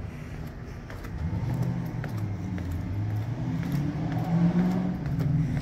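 A motor vehicle's engine running nearby, growing louder from about a second in and rising a little in pitch, with a few faint clicks.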